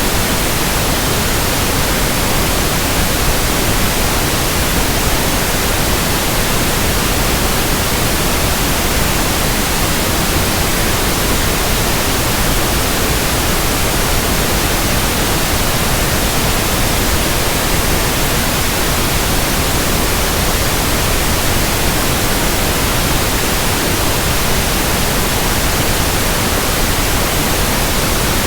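Steady, unbroken pink noise: an even static hiss spread across all pitches, a synthetic test signal for matching tinnitus.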